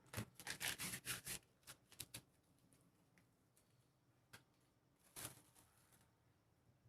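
Faint, quick scratching and tapping of powder filler being worked into a split wood joint by hand: a busy cluster in the first second and a half, then scattered light ticks and one more brief scrape about five seconds in.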